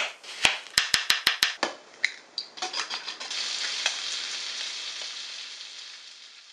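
A knife chopping a bell pepper on a cutting board, about six quick, sharp strikes in the first second and a half. Then bacon sizzling in a frying pan, a steady hiss that fades out near the end.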